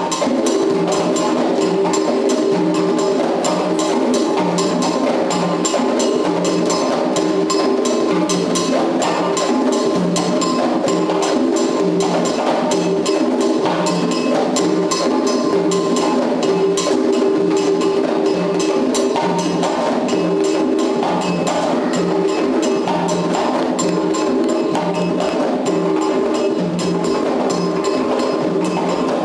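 Drum circle of hand drums, congas among them, playing a steady rhythm of repeated sharp strikes without a break.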